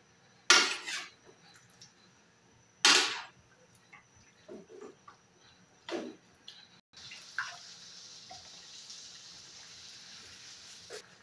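Metal spatula scraping and knocking against a steel wok as chicken pieces are stirred, with two loud scrapes in the first three seconds and softer knocks after. About seven seconds in, a steady soft sizzle of the chicken cooking in its juices takes over.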